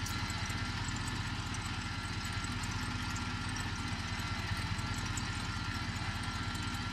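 Bucket truck's engine running steadily at a fast idle, with a fast, even low throb and a thin steady whine above it, while its boom holds a roof truss.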